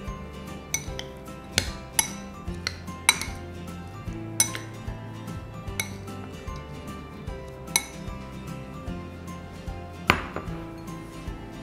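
Metal spoon clinking and scraping against a glass bowl while tossing a salad, with irregular sharp clinks. Near the end comes a louder knock as a small glass bowl is set down on the counter.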